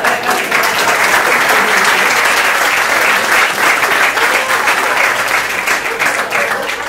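Theatre audience applauding: dense, loud clapping that starts to thin out near the end.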